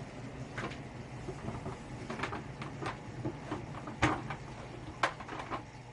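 Furnace motor running with a steady low hum through its power-up cycle after power is restored, under a series of sharp clicks and knocks; the loudest knock comes about four seconds in and another about a second later.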